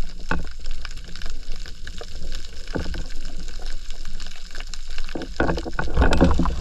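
Water sloshing and gurgling around an underwater camera held just below the surface, with scattered crackling clicks and a heavier rush of water near the end.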